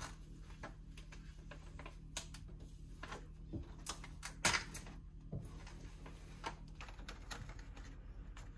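Scattered light clicks and taps at an uneven pace, with one sharper click about four and a half seconds in, as something is handled and positioned along a wall.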